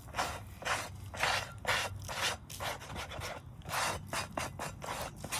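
Coals and ash being scraped off the lid of a cast-iron Dutch oven in quick, repeated strokes, about two to three a second.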